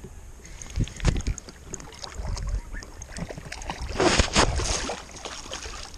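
Water splashing briefly and loudly about four seconds in, close to the microphone, amid scattered light knocks of handling.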